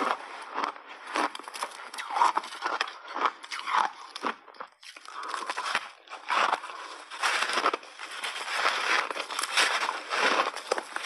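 Close-miked crunching of a block of frozen ice coated in milk powder as it is bitten and chewed, sharp crunches coming in quick succession with a brief break about halfway through.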